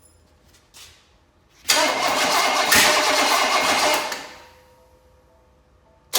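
Chevrolet 305 cubic-inch small-block V8, primed with gas poured into the carburetor, cranked and catching briefly: it runs for about two and a half seconds, then dies away as the priming fuel runs out. It starts up loudly again right at the very end.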